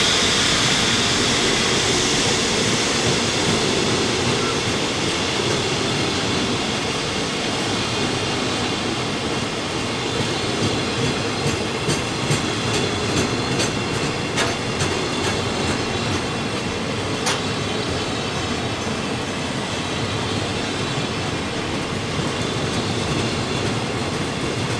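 Coal freight train's hopper wagons rolling steadily past, a continuous rumble of steel wheels on rail. The wheels ring with a high squeal that is strongest at the start. Between about ten and seventeen seconds in there is a run of clickety-clack as wheelsets cross rail joints.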